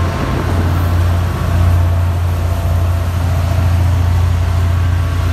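GP40MC diesel-electric locomotive's engine running as the train moves off, a loud steady low drone.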